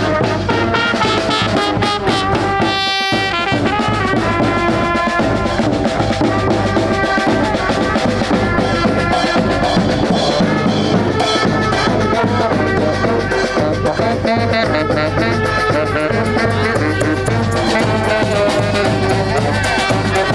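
Street brass band playing a lively tune, with horns and drums together.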